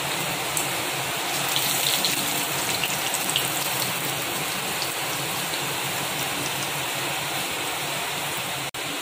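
Breadcrumb-coated egg kababs deep-frying in hot oil: a steady sizzle with fine crackles, broken by a momentary gap near the end.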